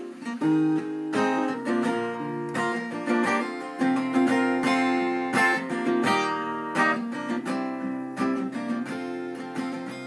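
Cutaway acoustic guitar with a capo playing a solo instrumental introduction of ringing chords, with a steady run of picked and strummed strokes.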